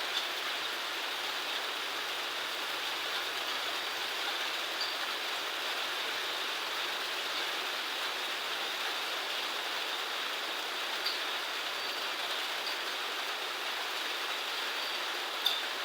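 Steady hiss of water, with a few faint ticks.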